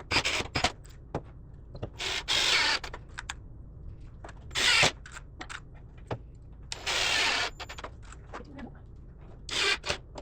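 Short bursts from a power tool, about five or six in ten seconds, each lasting around half a second, with small clicks and knocks in between.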